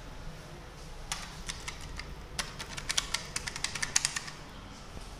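Lift push buttons being clicked over and over in a fast, irregular run lasting about three seconds, over a low steady hum.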